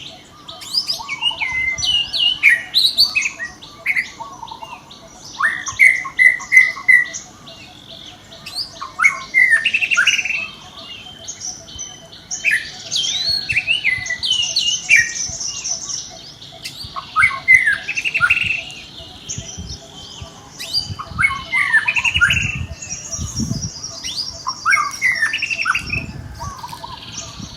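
Overlapping high-pitched animal calls coming in bursts: short squeaks, falling chirps and quick rattling trills, with a few low thumps near the end.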